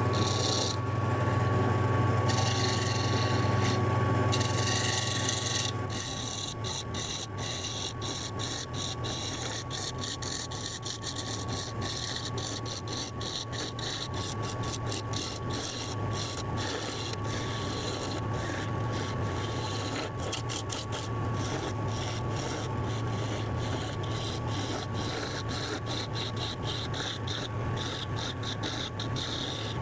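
Wood lathe running with a gouge roughing out a spinning wooden spindle blank: a steady rasping cut over the motor's steady hum and thin whine. The cut is loudest for about the first six seconds, then goes on lighter with many fine ticks.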